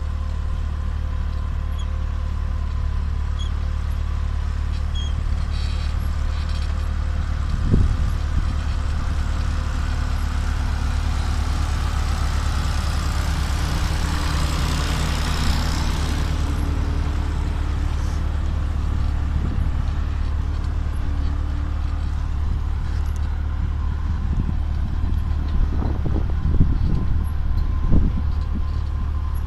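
Farm tractor engine running steadily under load while towing a plastic-mulch laying machine, a constant low rumble. A few knocks and thumps come near the end.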